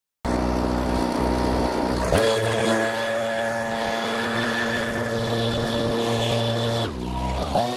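Backpack leaf blower's engine running steadily at high throttle, its pitch jumping to a new level about two seconds in and again near the end, with a brief rise in revs just before the end.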